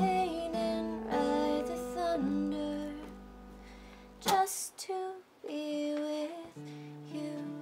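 A woman singing a slow song while playing an acoustic guitar: two sung phrases over held guitar notes, with a short, loud breathy sound between them about four seconds in.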